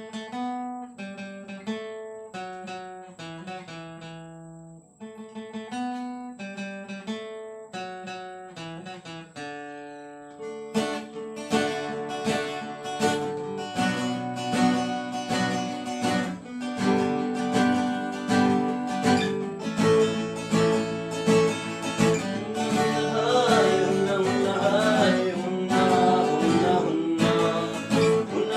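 Music: acoustic guitar picking a song intro in separate notes, joined by a fuller, louder accompaniment about ten seconds in, with a wavering melody line over it near the end.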